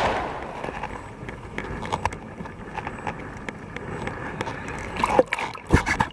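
Choppy sea water sloshing and splashing around a camera held at the surface, starting with a loud rush of water that fades over the first second. A few sharp knocks come near the end.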